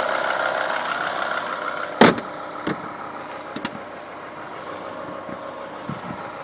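BMW E60 M5's V10 engine idling with the "diesel noise" its owner complains of, which he connects with the VANOS units. About two seconds in there is a sharp click, after which the engine sound grows fainter, with a few lighter clicks.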